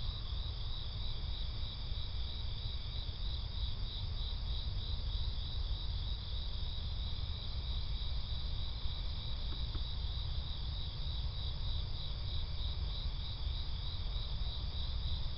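Crickets chirping steadily in a high, even pulse, about three chirps a second, over a steady low rumble.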